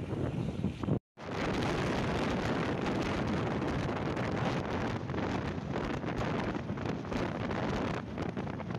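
Wind rushing over the microphone of a phone riding on a moving motorcycle, with the motorcycle's engine and road noise beneath. The sound cuts out for a moment about a second in.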